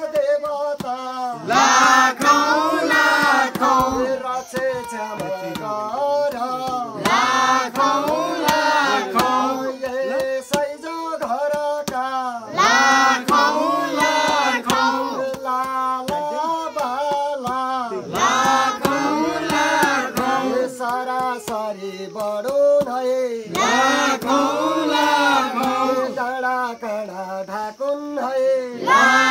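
Group of boys and men singing a Nepali Deusi song together, with a louder group refrain coming back about every five and a half seconds. Hand clapping keeps a steady beat under the voices.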